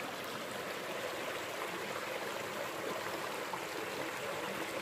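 Small spring-fed creek running with a steady, even rush of water.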